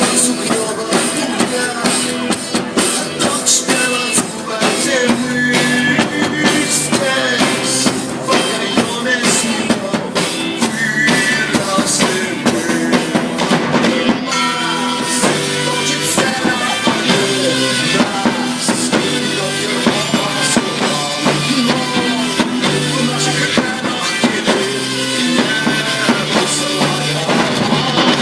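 Rock music played loud: a drum kit keeping a steady beat, with guitar and a singing voice.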